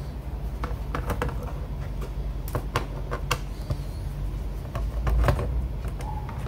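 Scattered small plastic clicks and taps from working on a laptop's underside, unscrewing and lifting off the RAM compartment cover, with a louder knock about five seconds in.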